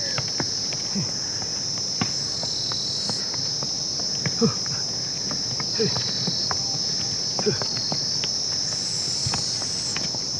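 Steady high-pitched insect chorus, with scattered clicks and a few short, low sounds that fall in pitch.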